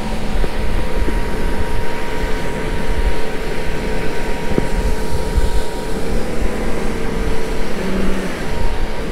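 Outboard motor driving a fishing boat at speed, with a steady drone of engine, wind and rushing water over the hull.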